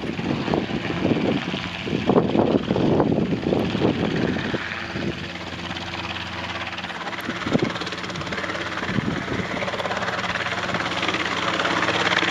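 Robinson R22 helicopter hovering: the steady drone of its two-bladed rotor and piston engine, with an even hum. Uneven gusty noise covers it for the first four seconds or so, then the drone runs steady.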